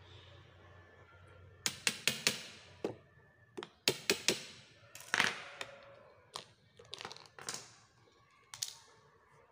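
Flat-head screwdriver prying the plastic top cover off a sealed maintenance-free motorcycle battery by force: a run of sharp plastic cracks and snaps in irregular clusters, starting about two seconds in.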